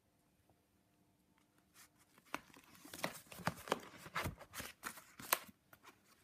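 Stiff collaged card pages of a ring-binder junk journal being turned by hand. After a near-silent start, a run of crackles and rustles begins about two seconds in and ends shortly before the finish.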